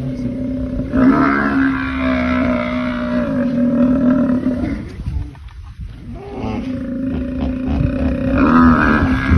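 Two long, steady animal bellows, each lasting several seconds, with a break of about a second between them.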